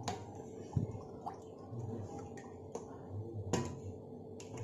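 Quiet kitchen handling sounds: about half a dozen light clicks and taps as red syrup is poured from a plastic bottle into milk in a steel mixer jar and the bottle is put aside.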